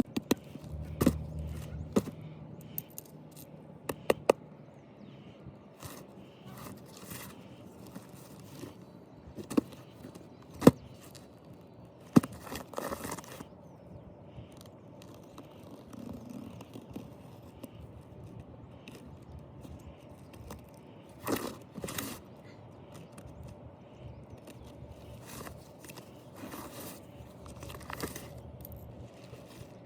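Toy packaging being handled and opened: scattered sharp clicks, taps and scrapes of cardboard and plastic, with some faint tearing and crinkling.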